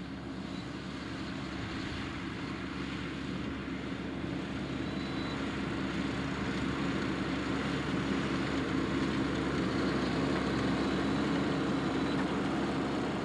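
Farm tractor engine running steadily, growing gradually louder as it comes closer.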